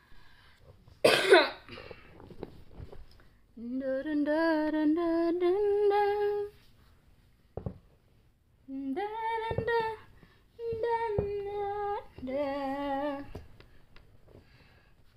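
A woman humming a lullaby to a nursing baby in several drawn-out, wavering phrases with short pauses between them. About a second in, a brief loud vocal sound breaks in, like a cough.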